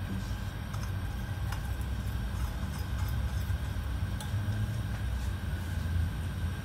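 Minced garlic scraped from a small steel bowl into oil in a frying pan, a few light clicks and crackles heard over a steady low rumble in the kitchen.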